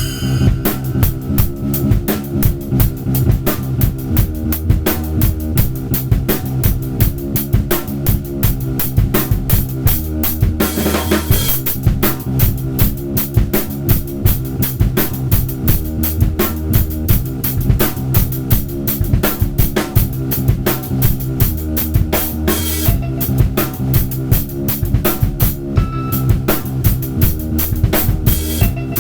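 Drum kit played in a busy improvised groove of kick, snare and rimshots, over a looped sample with a low bass line whose notes change every few seconds.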